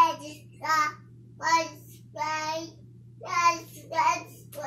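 A toddler babbling in high, drawn-out sing-song syllables, about six of them with short pauses between, in a wordless 'lecturing' tone.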